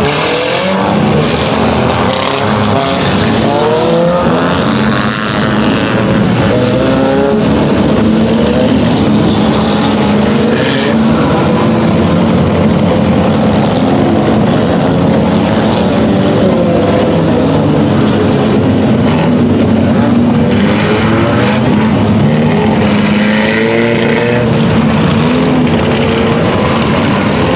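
A pack of dirt-track pure stock and four-cylinder race cars running laps together, many engines at once, their notes rising and falling as the cars pass. The cars are running in the rain-soaked dirt track rather than racing.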